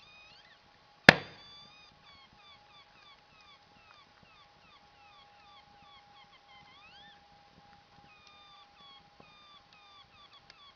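Burning firewood whistling and squeaking as steam and gas jet out of the logs: a run of short, pitched chirps that rise and fall, over a steady faint whistle. One sharp crack about a second in.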